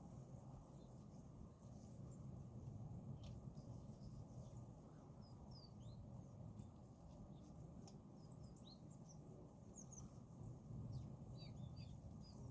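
Small birds giving short, faint, high chirps and twitters, scattered and busier in the second half, over a low steady background rumble.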